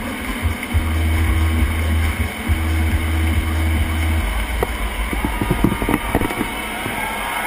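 Deep, loud electronic rumble from a performance's sound system, a low droning hum that falls away about four seconds in, followed by scattered clicks and crackles.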